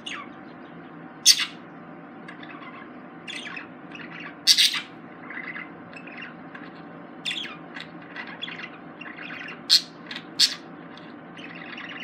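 Pet budgerigars chattering and warbling softly, broken by about four sharp, loud squawks, over a steady low hum.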